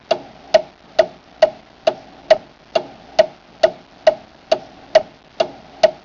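Clock ticking steadily, a little over two ticks a second, each tick a sharp click with a short ring.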